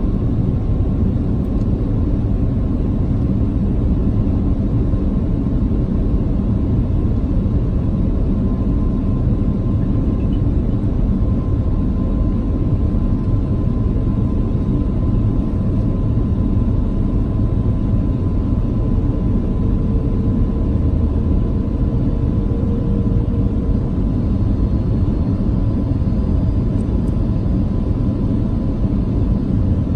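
Steady airliner cabin noise by a window over the wing: the turbofan engines and airflow make a continuous low rumble with a faint steady whine above it, during the descent to land.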